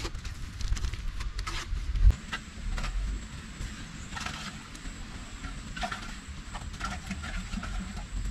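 Scattered light scrapes and taps of hand building work over a low steady rumble, with one louder knock about two seconds in.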